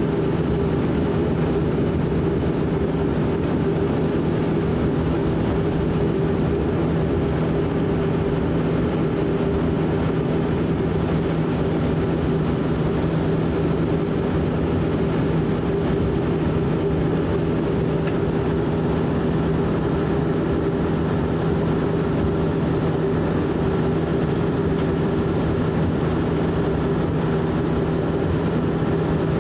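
Cabin drone of a De Havilland Canada Dash 8 Q400's Pratt & Whitney PW150A turboprops at taxi power: a steady hum with a low propeller tone and a higher one above it, heard from inside the cabin.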